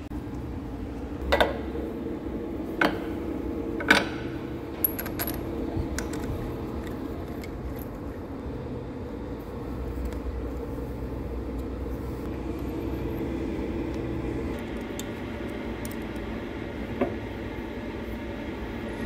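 Hand tools clinking sharply against the steel line-boring setup, several times in the first five seconds and once more near the end, over a steady mechanical hum.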